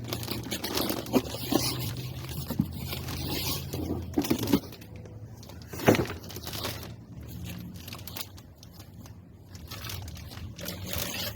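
Scraping, crinkling and knocks of a new alternator being handled and unpacked from its packaging, over a steady low hum.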